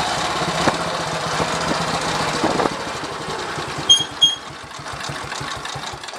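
1939 AJS Model 22's 250 cc single-cylinder engine running at a standstill. Its firing beats slow down to a lumpy idle and then cut off near the end as it is switched off. Two short high chirps come about four seconds in.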